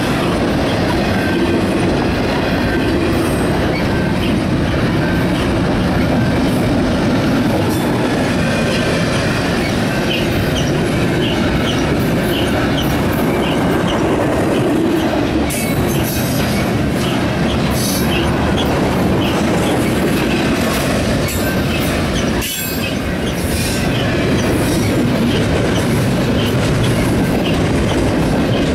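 BNSF double-stack intermodal train's loaded well cars rolling past close by: a steady heavy rumble of steel wheels on rail with a running pattern of clicks, and short high-pitched wheel squeals in the second half.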